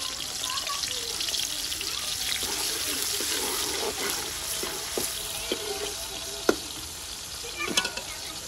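Sliced onions sizzling and crackling as they fry in hot ghee in a metal karahi. A ladle stirs through them, with a few sharp knocks of the ladle against the pan in the second half.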